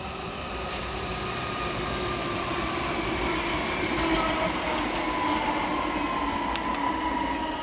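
DB Class 422 electric multiple unit running past at close range, its electric drive whine falling slowly in pitch over the rumble of the wheels on the rails, with a few sharp clicks near the end.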